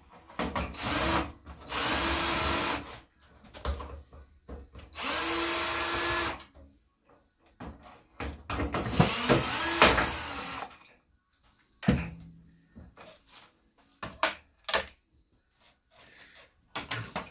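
Cordless drill-driver unscrewing the casing screws of an electric convector heater, in three runs of one to two seconds each with short pauses. It is followed by a few sharp knocks and clicks of the metal casing being handled.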